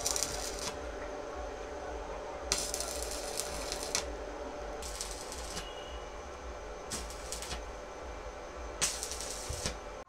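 Stick (arc) welding on a steel motorcycle frame: the arc crackles in short runs of half a second to a second and a half, five times with pauses between, over a faint steady hum.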